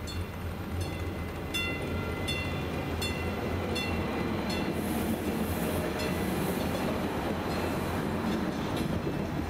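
Railroad crossing bell ringing at a steady rate, about one strike every three-quarters of a second, while a CapMetro MetroRail diesel railcar rolls across the crossing. The train's rumble builds from about three seconds in and partly covers the bell, with a high hiss joining it in the second half.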